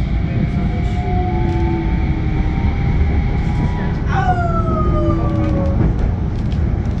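Ride noise inside a GT6NU low-floor tram: a steady loud rumble of wheels on rail, with an electric whine that sets in suddenly about four seconds in and glides down in pitch for about two seconds before fading.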